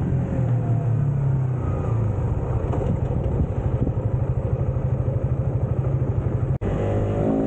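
Suzuki GSX-S150's single-cylinder four-stroke engine on the move: its note drops as the bike slows, then settles into a fast, even pulsing beat at low revs for a few seconds. After a split-second break in the sound near the end, the engine pulls again with rising revs.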